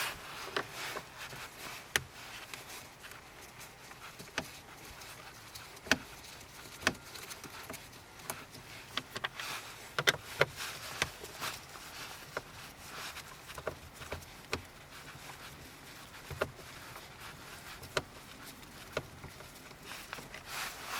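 Irregular clicks and knocks of hands and tools working on plastic trim around a car's steering wheel and column, with a light background hiss between them.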